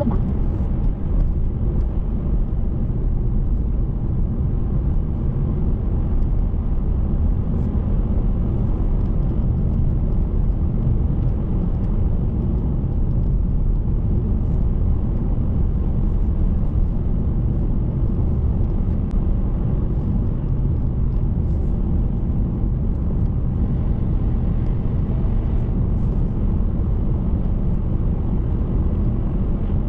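Steady road and engine noise of a car driving at a constant pace: an unbroken low rumble with a fainter hiss above it and no distinct events.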